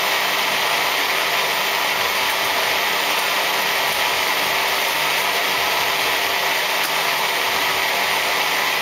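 Magic Bullet blender motor running steadily, blending a green shake of spinach, celery, cucumber and cilantro with water.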